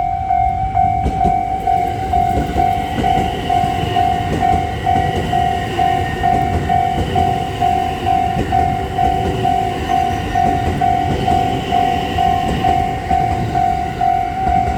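Level-crossing warning bell ringing steadily, with rhythmic dings about twice a second, while a train rumbles and clatters past over the crossing.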